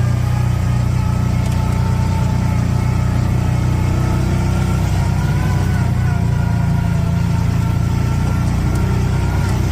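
A motor vehicle's engine running steadily, heard from on board as the vehicle drives along, with a constant low drone.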